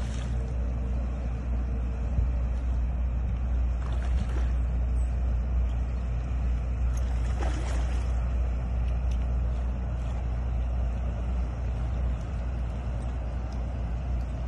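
Steady low engine drone of a motor yacht cruising along the canal, with a few brief splashes from a hooked tautog at the surface.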